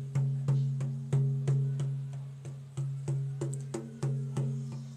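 Large rawhide frame drum struck by hand in a steady beat, about three strokes a second, each stroke ringing with a deep tone that fades before the next.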